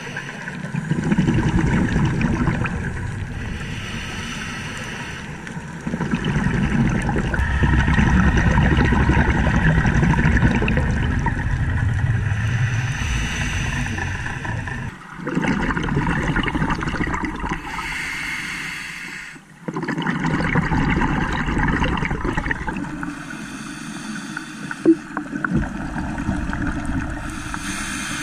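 Scuba diver breathing through an open-circuit regulator: long bubbling, rushing exhalations alternating with shorter hissing inhalations, several breaths in a row.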